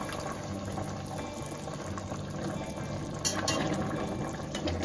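Sugar syrup with rasgullas in it, bubbling at a steady boil in a stainless steel pot. There are a couple of light clicks about three and a half seconds in.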